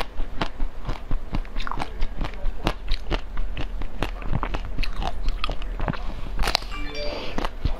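Close-miked biting and chewing of a frozen chocolate-coated cake with a cream and berry filling: a dense run of small crisp crackles and crunches as the chocolate shell breaks, with a bite taken near the end.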